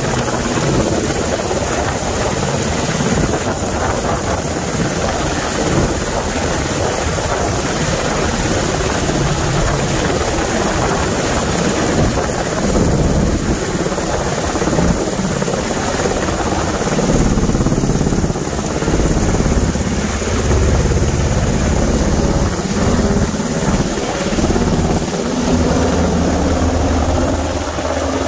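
Black Hawk rescue helicopter's main rotor beat and turbine noise, loud and continuous as it hovers close by and then flies overhead.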